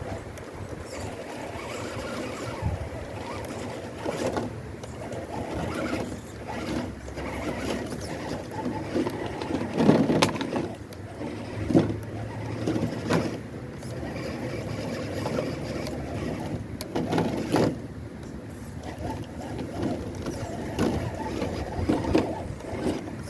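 A 1/10 RC crawler's small 64-turn brushed electric motor and drivetrain whirring in short, uneven bursts as it crawls over rough ground, with louder surges about ten and twelve seconds in.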